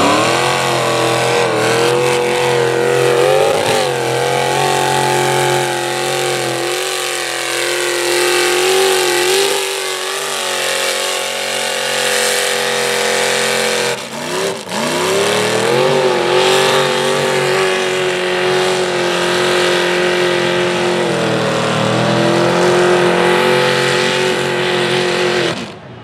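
Lifted Dodge mud truck's engine revving hard and held at high revs as it plows through a mud bog, climbing sharply at the start. About halfway through the revs drop briefly and climb back up, and the sound cuts off abruptly at the end.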